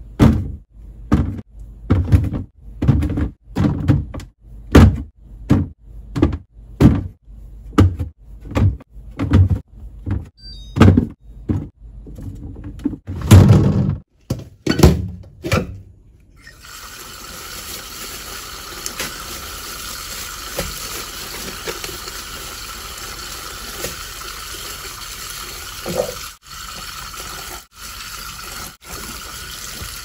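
A steady run of deep thuds, about three every two seconds, for the first half. From about halfway, a kitchen tap runs steadily into a stainless steel sink as vegetables are washed under it.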